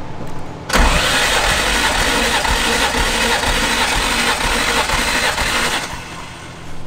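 BMW E36 M3 straight-six spun over on its starter motor with the spark plugs out for a compression test: a fast, even cranking that starts just under a second in, runs for about five seconds, then stops without the engine firing.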